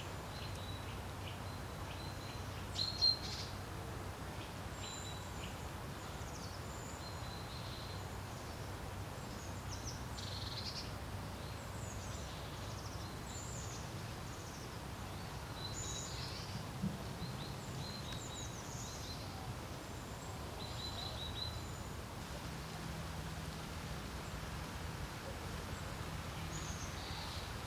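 Wind blowing over a lake, a steady low rumble, with small birds giving short high chirps and song phrases throughout, thinning out near the end.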